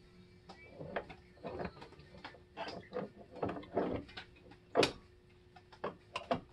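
Irregular mechanical clicks and clunks from hands-on work on the car with the engine off, the loudest knock just before five seconds in, over a faint steady hum.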